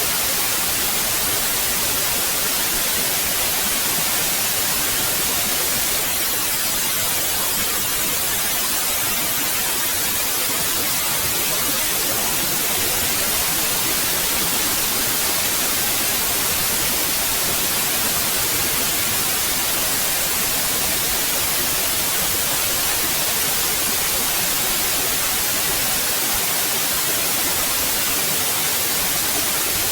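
Steady white noise, an even hiss that does not change, with most of its energy in the high frequencies.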